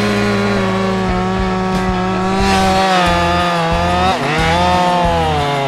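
Chainsaw running at full throttle while cutting into the base of a large tree trunk. Its pitch holds steady, then dips briefly and recovers about four seconds in.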